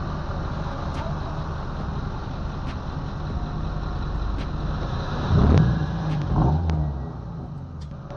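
Honda Civic Si's K20 2.0-litre four-cylinder running at low speed in traffic, breathing through a bored-out J35 throttle body and cold-air intake. About five and a half seconds in it is revved twice in quick succession, each rev rising and falling sharply.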